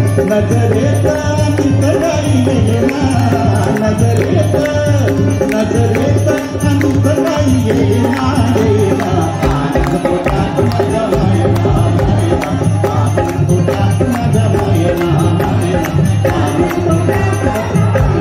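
Live Marathi devotional bhajan: voices singing a melody over a hand drum, small percussion and keyboard accompaniment, played continuously and loud.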